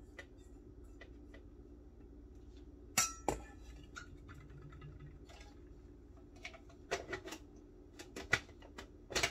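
Kitchen handling clatter: a stainless steel bowl, a spatula and the plastic parts of a food processor knocking and clinking. There are two sharp knocks about three seconds in, and a run of plastic clicks near the end as the feed-tube pusher is fitted into the lid. A steady low hum runs underneath.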